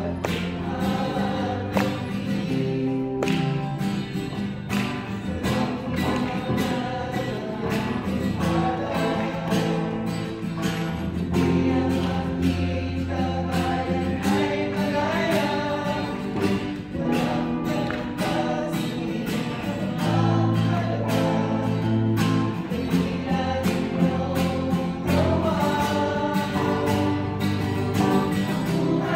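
A small group singing a song together in unison, accompanied by a strummed acoustic guitar.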